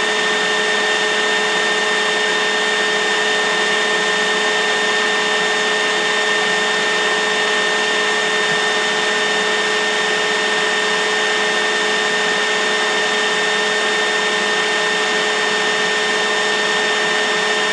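Steady, unchanging hiss with a constant hum of a few tones, like a fan or small motor running, with no other sound above it.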